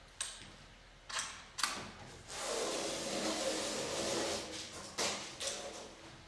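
Hardware banging and scraping during garage door installation: a few sharp knocks, then a scraping, rolling noise lasting about two and a half seconds, then more knocks.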